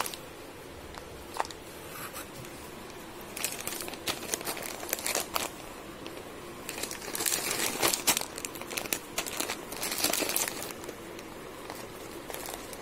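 Plastic food packets of dal and snacks crinkling and rustling as they are handled and shifted about, in uneven spells with sharp crackles, busiest in the middle after a quieter start.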